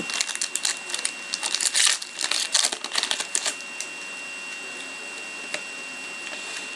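Foil hockey-card pack wrapper crinkling and crackling as it is torn open, a run of sharp crackles for about three and a half seconds, then dying down to near quiet.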